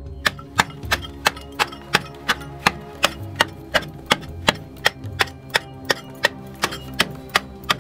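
A small hand hoe chipping into packed clay, sharp knocks about three a second, over background music.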